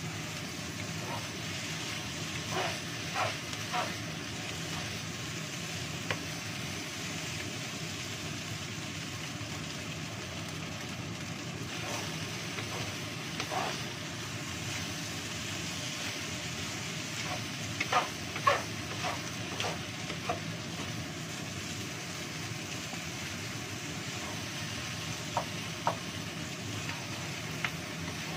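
Fried rice sizzling steadily in a frying pan over a gas burner while a wooden spatula stirs and turns it. Scattered clusters of knocks and scrapes of the spatula against the pan, the loudest about two-thirds of the way through.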